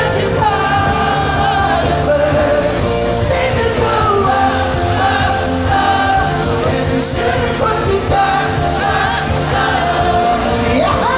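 Live band playing a song with singing, loud and continuous, heard from among the audience.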